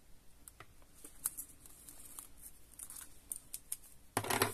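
Quiet handling of double-sided adhesive tape and card: scattered light clicks and crinkles from fingers picking at the tape. A brief, louder rasp comes near the end.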